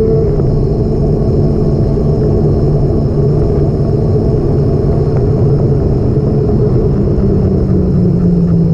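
Motor vehicle engine running steadily under heavy low rumble, its note easing down slightly near the end.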